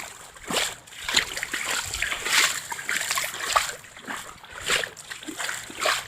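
Footsteps wading through knee-deep floodwater, each stride a splash and slosh, about one a second.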